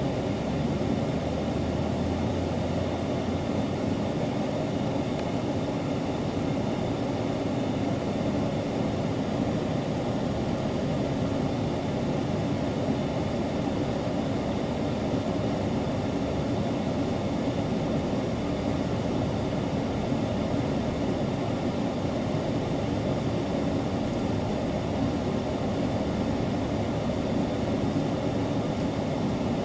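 Steady low rumbling noise with a faint hum running through it, holding an even level throughout.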